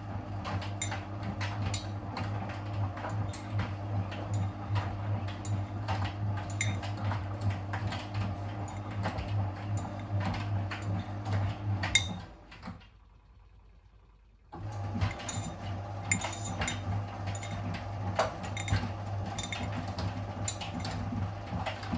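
Miele WS 5405 front-loading washing machine tumbling its wash load, with a jacket and trainers knocking and clattering against the drum. The drum motor runs with a steady hum for about twelve seconds, winds down and stops, pauses for about two seconds, then starts again: the usual stop-and-reverse rhythm of a front-loader's wash action.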